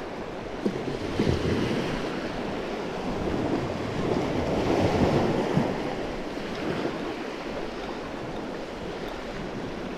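Small surf waves breaking and washing up the beach, swelling about halfway through, with wind buffeting the microphone.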